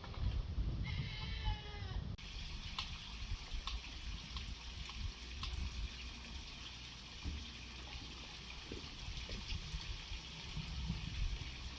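A sheep or goat bleats once, about a second in, a wavering call over a low outdoor rumble. After that, sparse light crackles come from a wood cooking fire.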